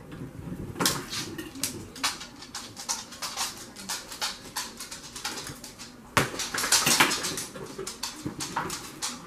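Plastic and cardboard toy packaging rustling and crinkling as a boxed plush toy is unpacked, in crackly bursts that are loudest about a second in and again from about six seconds in.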